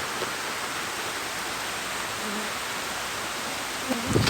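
Downpour of rain falling, a steady even hiss, with a short pitched sound just before the end.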